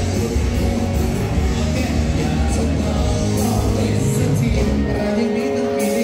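Live band music played through a PA system, with a man and a woman singing into handheld microphones. The bass drops out briefly about five seconds in, then returns.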